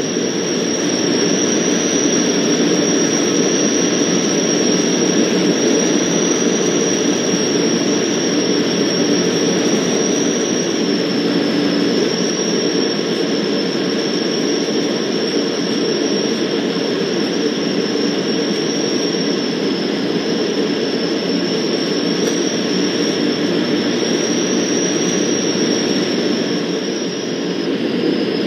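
Cockpit noise of a Van's RV-12 in flight: its Rotax 912 flat-four engine and propeller running steadily, mixed with airflow noise, as a constant drone with a thin steady high whine over it.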